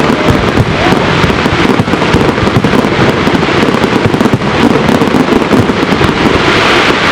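Dense, continuous barrage of fireworks: many bangs and crackles overlapping without a break, with a faint rising whistle about a second in.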